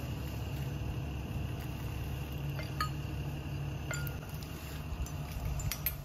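Diesel engine of a 16-tonne rough-terrain crane idling steadily, with a few light metallic clinks scattered through.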